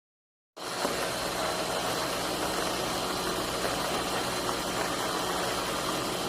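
Portable battery-powered electric coffee grinder running steadily, its motor whirring with a faint high whine. It starts suddenly about half a second in.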